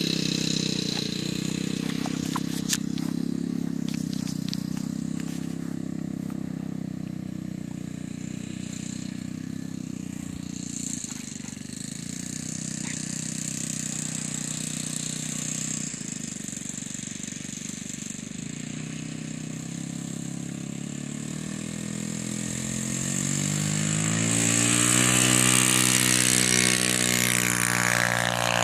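RC P-40 Warhawk model airplane's engine and propeller running steadily, fading as the plane moves away. About six seconds before the end it grows louder and rises in pitch as the plane comes back in a low pass.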